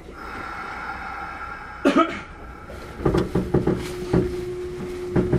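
Kintetsu 1201 series electric train, heard from on board, starting to pull away after its doors close. A steady high tone plays for the first two seconds, then comes a loud thud, then a run of clicks and knocks under a low steady hum as the train begins to move.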